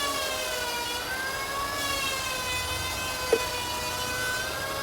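Electric motor of a woodworking machine or power tool running steadily with a whine whose pitch drifts slowly up and down, with one short tick a little after three seconds in.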